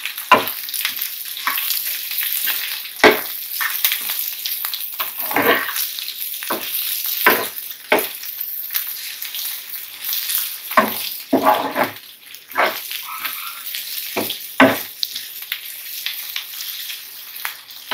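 Chopped vegetables sizzling in a frying pan as a slotted metal spatula stirs the spices through them. The steady high sizzle is broken by irregular scrapes and knocks of the spatula against the pan.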